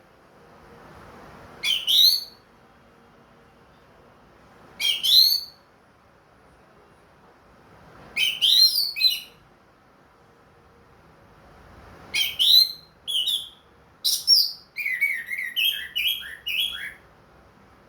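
Orange-headed thrush singing, back in song after its moult: short phrases of quick, high, sweeping notes with pauses of two to three seconds between them, about five phrases, the last one longer and dropping to lower notes.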